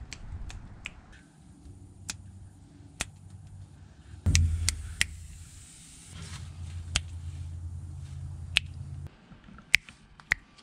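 A series of sharp finger snaps at irregular intervals over a faint low hum, with a louder bump about four seconds in.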